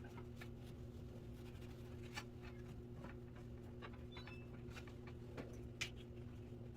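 Faint scattered clicks and light scratching from hands and a brush handling cleaned box fan parts, over a steady low hum.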